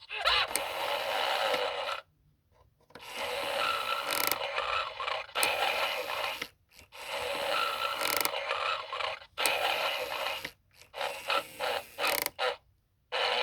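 Gemmy animated Homer Simpson figure playing recorded snoring through its small built-in speaker: tinny, with no bass, in a string of breaths each a second or two long, separated by short pauses.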